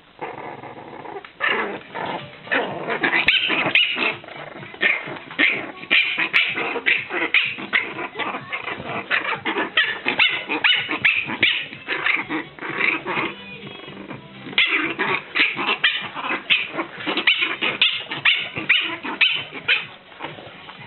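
A nervous dog barking and yapping over and over in long fast runs of short barks, with a brief lull about two-thirds of the way through.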